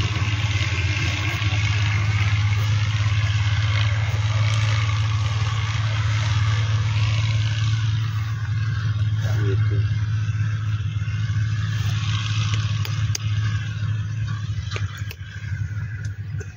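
Irrigation pump engine running steadily with a deep hum, growing quieter and less even near the end.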